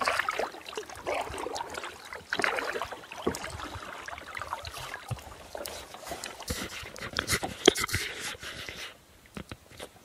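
Kayak paddling: paddle blades dipping and splashing and water washing along the hull of a Cool Kayaks Conger single-seat kayak, with irregular small knocks and clicks. It goes quieter for about a second near the end.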